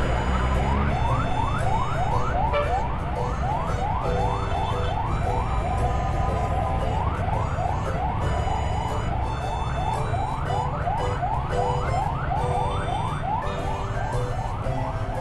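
A fast repeating siren-like wail, about three rising sweeps a second with a short break near the middle, over a low rumble of motorcycle engine and wind.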